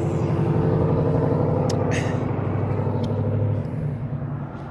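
Car engine and road noise heard from inside the cabin while driving: a steady low hum that fades near the end, with a few brief clicks.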